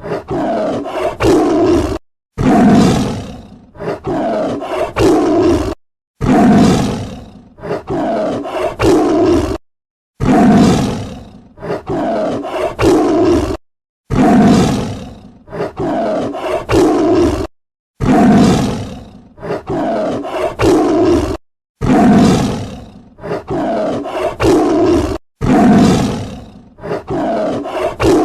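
Tiger roaring: one short recording looped about every four seconds. Each cycle is a loud call that falls in pitch, followed by a few shorter calls, with a brief dead-silent gap between repeats.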